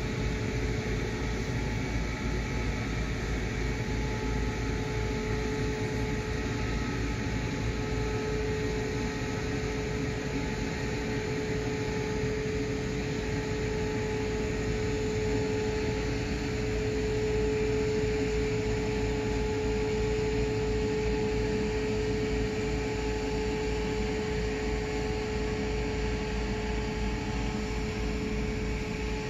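A steady machine hum carrying one held tone that swells slightly in the middle, over a continuous low rumble.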